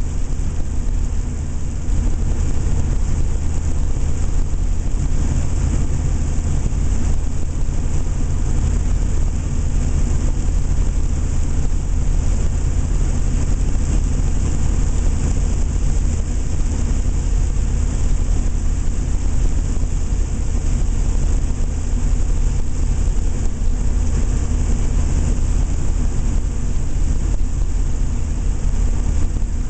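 A 7.3-litre turbodiesel V8 running at steady speed, a low engine drone with turbo whistle and hiss over it.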